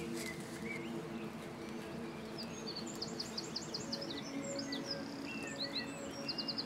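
Held low music notes with small birds singing over them: a run of about six quick high chirps about halfway through, other scattered calls, and a fast high trill near the end.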